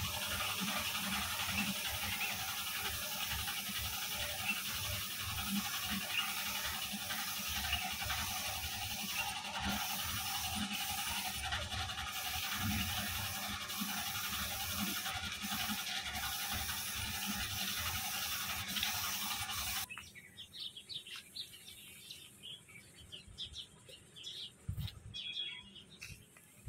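Compressed-air paint spray gun hissing steadily as it sprays paint onto a tractor body panel, cutting off suddenly about twenty seconds in.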